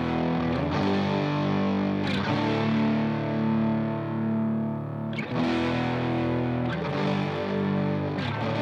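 Outro music: distorted electric guitar playing sustained chords that change every second or two.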